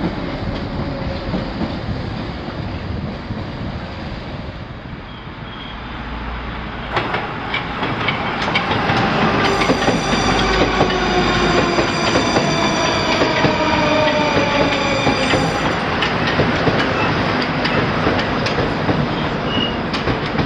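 Metro trains running past at track level. First one train rolls by; then, after a cut about 7 seconds in, an articulated metro train passes through a station with its wheels clicking over the rail joints and a motor whine that falls in pitch as it slows.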